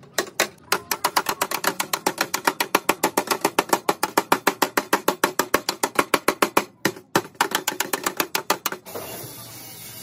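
Hand hammer beating rapidly on a car's bent sheet-steel front inner fender, about six blows a second with a brief pause, straightening crash damage. Near the end the hammering stops and the steady hiss of a gas welding torch takes over.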